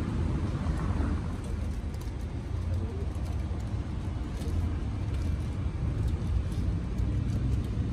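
Street background noise: a steady low rumble, like traffic, with faint scattered clicks.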